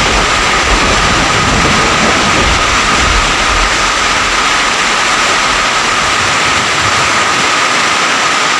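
Heavy downpour of rain pouring steadily as a dense hiss, with a deep low rumble that fades out about three seconds in.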